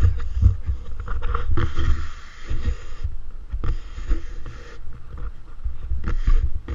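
Wind buffeting an exposed camera microphone: an uneven low rumble with irregular thumps, and gusts of hiss that come and go several times.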